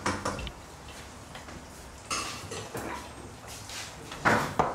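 Glasses and kitchenware clinking and knocking as they are handled on a kitchen counter: a scatter of short, light clatters, with a brief louder sound near the end.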